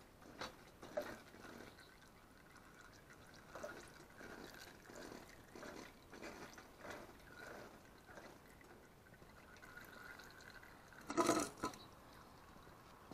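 Used engine oil draining from a 212cc Predator engine's sump, trickling and dripping irregularly into a drain pan, with a single louder clunk about eleven seconds in.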